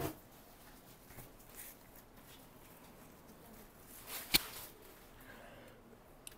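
Faint rustle of silk sarees being unfolded and spread on a table, with a brief swish of fabric and a sharp click about four seconds in.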